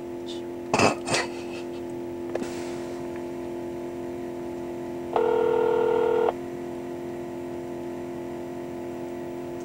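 A telephone's electronic tone, one steady beep lasting about a second midway, over a steady low hum, with a few short clicks about a second in.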